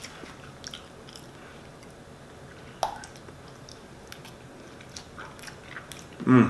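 Close-up mouth sounds of a person biting and chewing a potato dipped in a creamy sauce: faint wet smacks and small clicks, one sharper click a little under 3 s in. A short hum-like vocal sound comes near the end.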